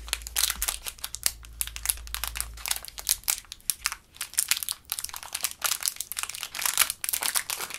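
Crinkling of a small clear plastic bag with a paper header card as fingers work it open, a dense run of quick irregular crackles.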